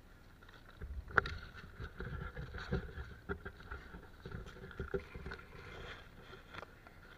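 Leaves and brush rustling and scraping against a body-worn camera as it pushes through dense undergrowth, with low handling rumbles and a sharp click about a second in.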